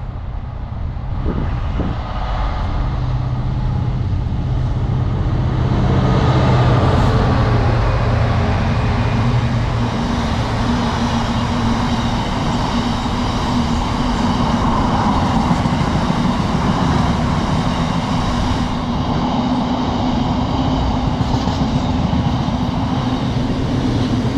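Class 66 diesel freight locomotive passing close by, hauling a long freight train. Its engine drone is strongest in roughly the first ten seconds, then the wagons roll past in a steady rumble with a held drone.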